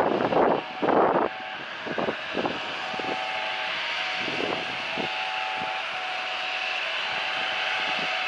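Jet engines of a twin-engine airliner on the runway, a steady high whine that slowly builds, over motorbikes passing close by on the road. A loud rushing noise fills the first second or so.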